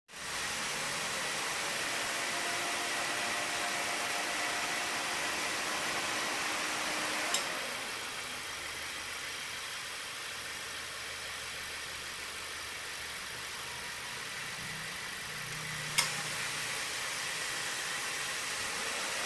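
2016 Subaru Levorg idling with the air conditioning on: a steady hum and hiss. The A/C compressor clutch clicks off about seven seconds in, and the running note drops. It clicks back on near sixteen seconds. The compressor runs without any abnormal noise.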